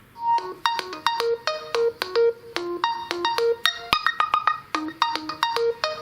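A Realme C3 stock ringtone starting: a quick electronic melody of short, sharp-edged pitched notes, about three to four a second.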